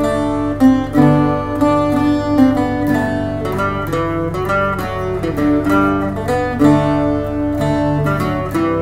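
Irish bouzouki picking a slow march melody in a steady run of ringing plucked notes, over a second Irish bouzouki's chord backing.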